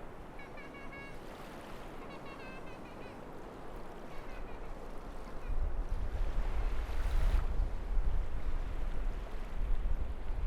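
Beach surf and strong wind: a steady wash of waves with a few faint distant calls in the first three seconds, then heavy wind buffeting the microphone from about halfway in, and a wave washing up loudly a little after that.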